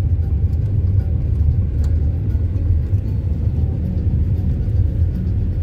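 Moving car heard from inside the cabin: a steady low rumble of engine and tyres on the road.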